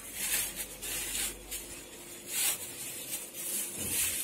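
Soft rustling and rubbing in a few short, irregular bouts, from hands handling things at a kitchen counter.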